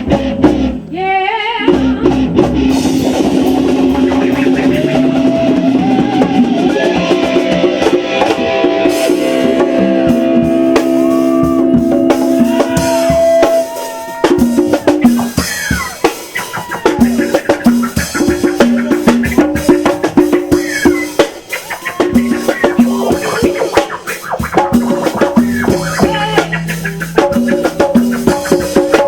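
A band playing music: a drum kit keeps a steady beat with snare and bass drum under held, sustained instrument notes. The music breaks off briefly about fourteen seconds in, then the beat picks up again.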